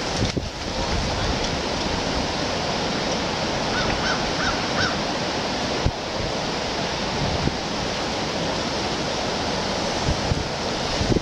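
Steady rush of water, waves or a creek, with wind buffeting the microphone in low gusts. A bird calls briefly, four short notes, about four seconds in.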